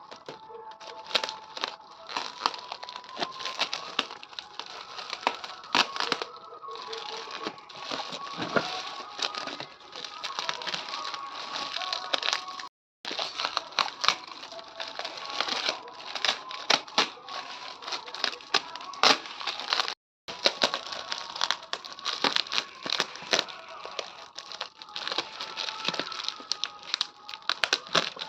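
Plastic packaging being handled and unwrapped: irregular crinkling and crackling with many sharp clicks, over faint background music. The sound cuts out briefly twice.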